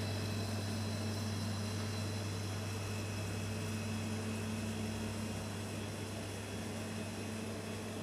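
OSIRIS portable mortuary refrigeration unit running: its compressor gives a steady low hum over an even hiss.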